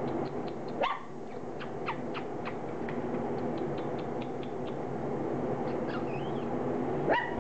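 Standard poodle puppies about four weeks old squeaking and yipping as they eat softened puppy mash: a short rising yip about a second in and more squeaks near the end, with scattered small clicks of lapping and chewing over a steady low hum.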